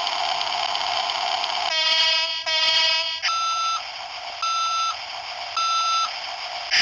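Cat (Caterpillar) phone ringtone. Over a steady hiss come two short buzzy tones, then three short electronic beeps about a second apart.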